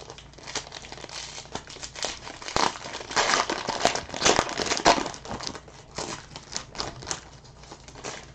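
Foil trading-card pack (2019 XR football) crinkling and tearing as it is ripped open by hand, the crackle loudest midway, then lighter rustling near the end.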